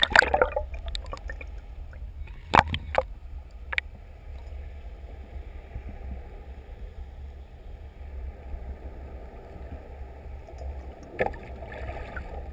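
Muffled underwater sound through an action camera's waterproof housing: a steady low rumble of water, with a few sharp knocks, the loudest right at the start and a pair about two and a half to three seconds in.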